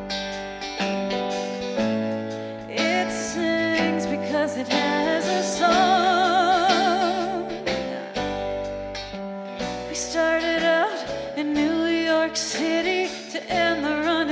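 A live band playing a song with guitar, keyboards, bass and drums. Drum hits run throughout, and a melody line is held with vibrato about halfway through.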